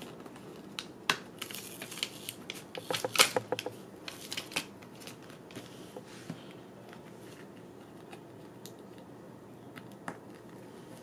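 A cut, laminated magnet sheet is pressed and peeled by hand out of the sheet around it: crackling plastic and sharp little clicks, busiest in the first few seconds, then only a few faint ticks.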